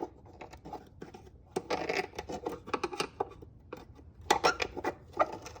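A screwdriver scraping and clicking against the chain cover's retaining clips on a Honda 185S ATC as they are pried loose: irregular metallic clicks and scrapes.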